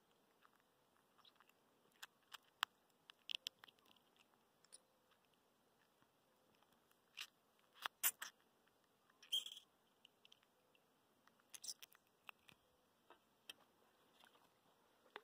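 Sparse, faint clicks and short rustles of hands handling a small piau flamengo fish and its hook, close to the microphone, with a louder cluster a little past halfway.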